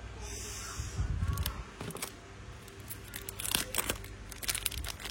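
Handling noise: a brief rustle, a few low bumps about a second in, then a run of sharp clicks and taps in the second half as small objects are moved about.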